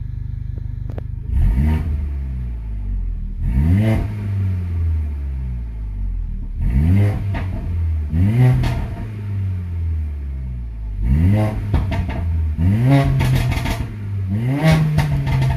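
Mercedes-AMG CLA45's turbocharged 2.0-litre four-cylinder, running through a catless (decat) downpipe, idling and then revved in park about seven times, each rev rising and falling back to idle. Sharp crackles follow several of the revs, heard from inside the cabin.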